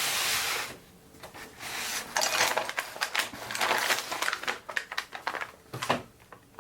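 A cardboard box being opened by hand and its paper-wrapped contents handled. A rushing scrape about a second long at the start, then several seconds of irregular crinkling and rustling.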